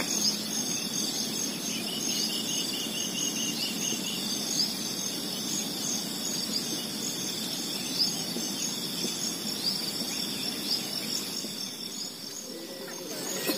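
Steady high-pitched shrilling of insects, with a few short rising chirps over it.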